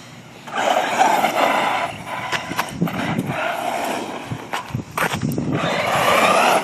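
Electric RC truggy (Hurricane XTe) driving in three spells of throttle, about half a second in, about three seconds in and from about five and a half seconds in, its motor and tyres making a rough, noisy rush each time.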